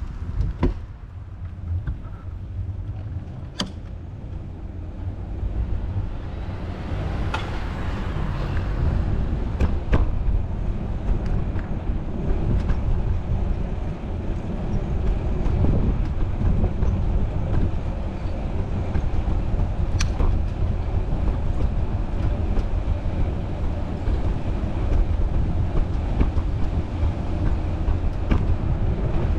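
Wind rumbling on the microphone of a camera carried while riding a bicycle through city traffic, growing stronger over the first few seconds, with a few sharp clicks scattered through.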